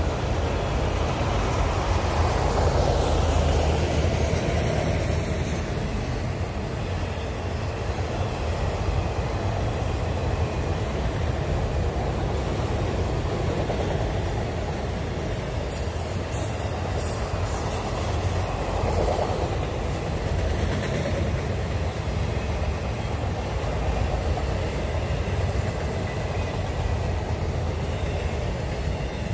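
Freight train of autorack cars rolling past, a steady rumble of steel wheels on rail, with the last car going by near the end.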